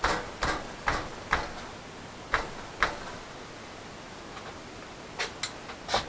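Sharp knocks and clicks of steel being worked at a bench vise: about six short knocks in the first three seconds, then a pause, then three more near the end.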